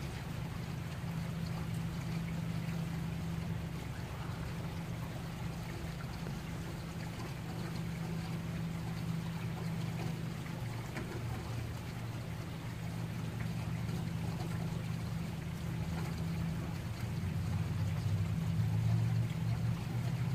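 Heavy rain falling steadily, with a steady low rumble underneath that swells slightly near the end.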